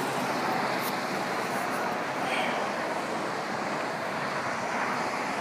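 Steady rushing background noise, even and unbroken, with no clear single event.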